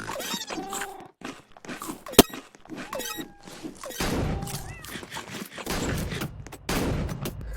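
Cats meowing now and then among knocks and thuds, with one sharp click about two seconds in that is the loudest sound.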